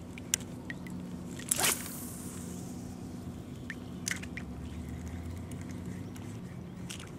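A spinning rod and reel handled from a kayak: scattered small clicks, with one brief, louder swish about one and a half seconds in, over a steady low hum.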